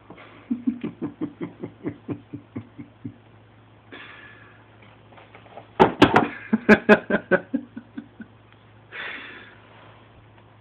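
Cardboard cereal box knocking and rustling with a kitten inside it: two runs of quick hollow taps that fade out, the second louder, with short rustles of cardboard between them.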